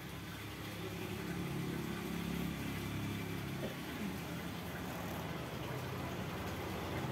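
An engine idling, a steady low hum that gets a little louder about a second in.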